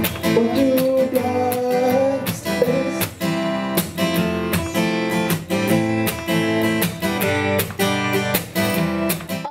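Acoustic guitar strummed in a steady rhythm, with a voice singing over it for about the first two seconds.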